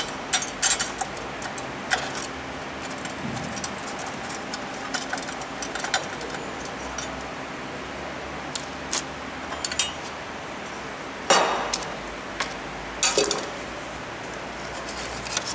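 A screwdriver clicking and clinking against the metal printhead carriage of a UV printer while its screws are worked loose, with irregular small metallic ticks. There are louder clatters about eleven seconds in and again near thirteen seconds.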